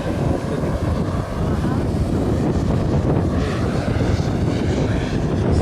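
Twin jet turbines of a large radio-controlled tanker model fading into the distance after a slow flyby, a faint whine under a heavy low rumble of wind on the microphone.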